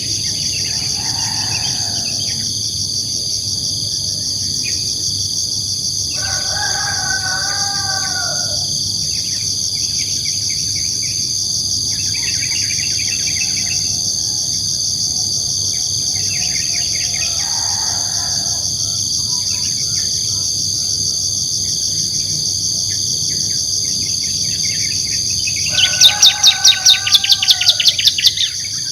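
A steady insect chorus with bird calls over it. Twice, about six seconds in and near the end, comes a long drawn-out call sounding at several pitches at once. Near the end a loud rapid run of clicks, about a dozen in two and a half seconds, is the loudest sound.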